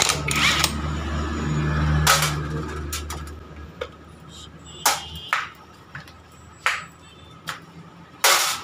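Cordless impact wrench running on a motorcycle clutch hub's centre nut for the first few seconds, a steady low rattle with a few sharp knocks, as it spins the nut off. It is followed by scattered light metal clinks of clutch parts being handled and one loud knock near the end.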